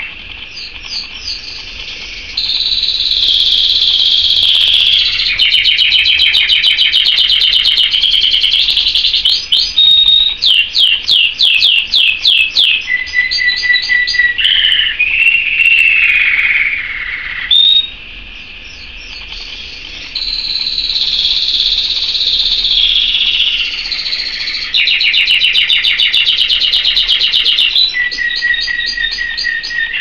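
Domestic canary singing a long song of rapid trills and rolls, fast rising-and-falling sweeps and short whistled notes, with a softer passage about two-thirds of the way through.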